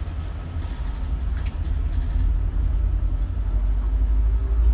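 Steady low machinery rumble that grows gradually louder, with a thin high-pitched whine running over it.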